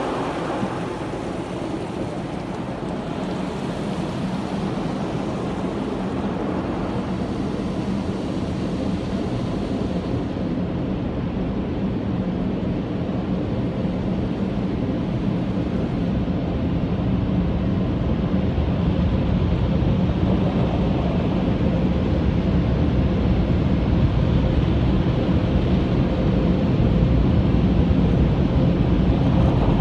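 Heard from inside a car's cabin in an automatic car wash: water spray hisses against the windshield, then fades after about ten seconds into a steady low rumble that grows louder toward the end.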